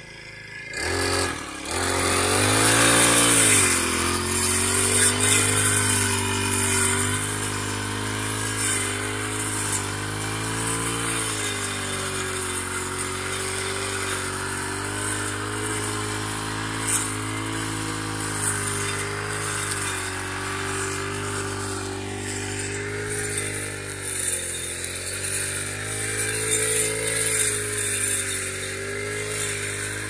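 Petrol brush cutter's engine revving up about a second in, then running at high throttle with its pitch rising and falling as it cuts grass.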